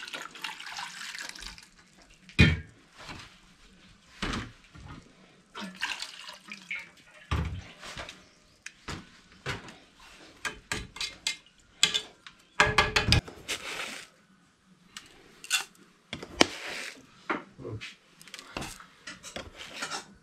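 Aluminium kettles, lids and a spoon handled at a gas stove while tea is made: scattered clanks, knocks and clinks, with some water sounds and a louder clattering stretch about two-thirds of the way through.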